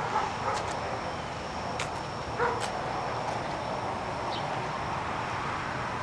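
Pump-up sprayer spraying cleaner through a nozzle on an extension pole: a steady hiss.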